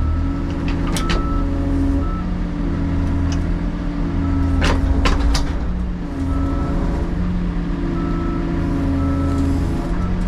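Diesel engine running steadily, with a short electronic beep repeating on and off and a few sharp metal clanks about a second in and again around the middle.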